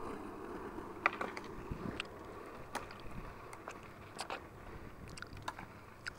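Skateboard wheels rolling on rough asphalt, a steady low rumble, with a scattering of light clicks and ticks.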